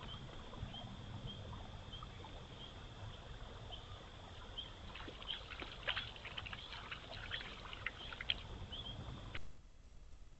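Shoreline ambience: water lapping and splashing at the bank, with a flurry of small splashes and clicks about five to eight seconds in. Underneath run a steady high chirring and a low wind rumble. All of it drops away abruptly about nine seconds in.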